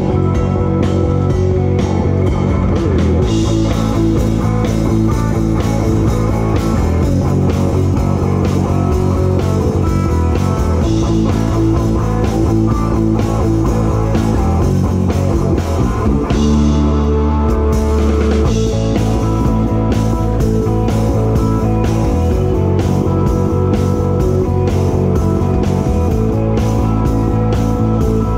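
Live rock band playing, heard from beside the drum kit: drums and cymbals close up over electric guitar and bass. About sixteen seconds in, the band holds a low chord with fewer drum hits for a couple of seconds, then the beat picks up again.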